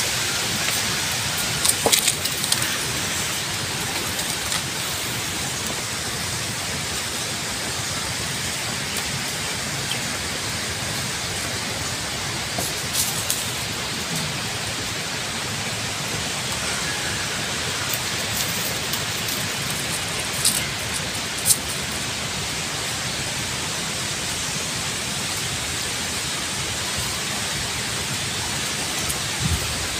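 Steady, even hiss of background noise, with a few brief faint clicks.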